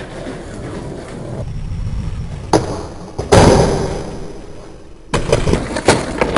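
Skateboard wheels rolling on a tiled floor and building up speed, then a sharp pop about two and a half seconds in. The board lands on a low metal flat bar with a loud clack and slides along it, fading out, and near the end it clatters on the tiles in a burst of clacks as the skater comes off.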